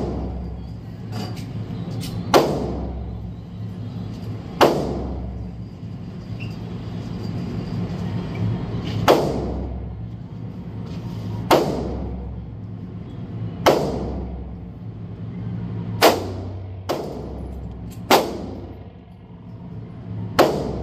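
Gunshots ringing out in an indoor shooting range, about eight sharp reports at irregular intervals, each with a long echoing tail, over a steady low hum.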